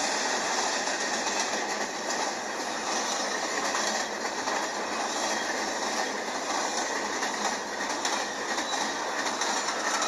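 Double-stack intermodal freight train's container cars rolling steadily past, wheels clicking on the rails. It is played back through a tablet's small speaker, so there is almost no bass.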